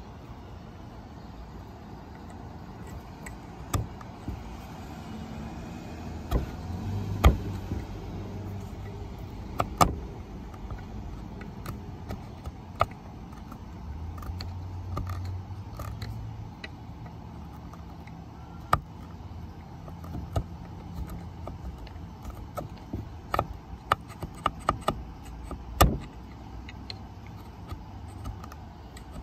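Hand tool chipping dried glue squeeze-out off a glued-up wooden guitar body: irregular sharp clicks and taps, some in quick runs, over a steady low hum.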